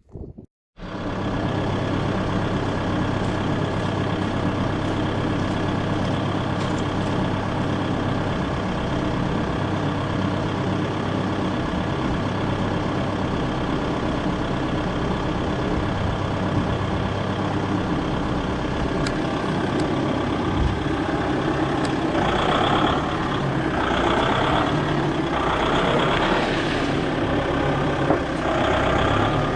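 Engine running steadily. In the last quarter its sound swells and falls back in repeated surges, as if the load comes and goes.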